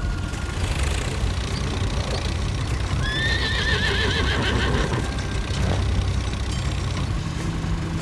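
A horse whinnies once about three seconds in, a rising call that breaks into a quavering trill, over the steady low running of a tractor engine.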